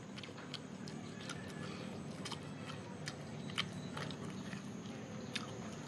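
A person chewing and biting grilled skewered meat, with irregular small wet mouth clicks and the sound of fingers tearing the meat apart.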